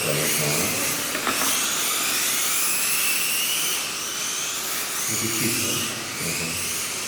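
Several Kyosho Mini-Z radio-controlled cars' small electric motors whining, their pitch rising and falling as the cars speed up and slow down around the track, with voices faintly beneath.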